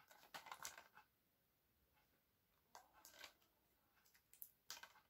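Near silence with a few faint clicks and rustles of a plastic Blu-ray case being handled, in three short clusters.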